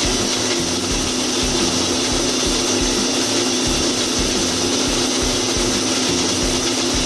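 Electric kitchen mixer grinder (mixie) running steadily at a constant pitch, blending apple pieces with almonds, cashews, pistachios and a little milk into a milkshake.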